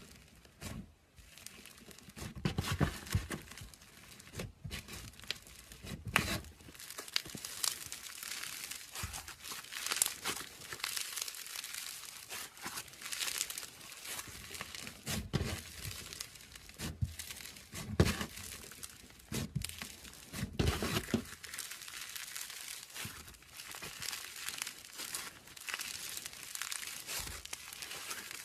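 Crunchy slime being squeezed and worked by hand, giving a steady fine crackling and popping, with several louder presses along the way.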